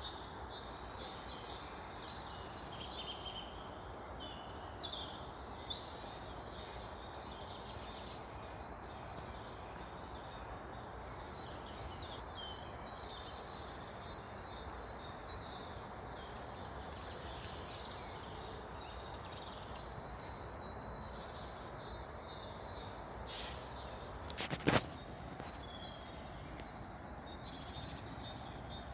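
Small songbirds chirping and singing in short phrases over a steady outdoor background rush. Late on there is one sharp click, the loudest sound.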